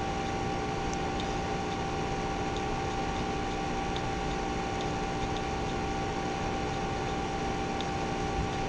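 Steady background hum and hiss with a constant whine, broken by faint scattered ticks.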